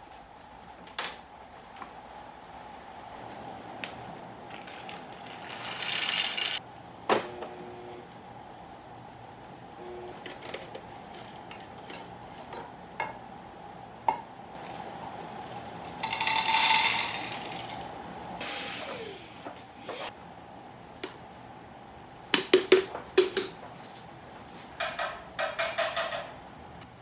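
Espresso machine with a built-in coffee grinder grinding in two short bursts, among clicks and metal clatter as grinder parts and the portafilter are handled. The grinder is acting up.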